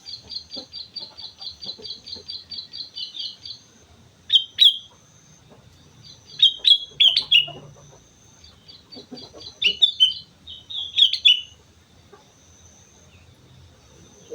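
Sooty-headed bulbul (kutilang) singing: a fast run of repeated high notes, about six a second, for the first three and a half seconds, then short bursts of call phrases every couple of seconds.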